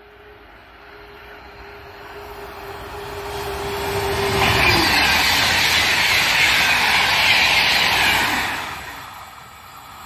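The Aiace high-speed electric trainset passing at speed. A rising rumble as it approaches, then a steady tone that drops in pitch about four and a half seconds in as it draws level. For about four seconds the cars go by with a loud rushing hiss, which fades near the end.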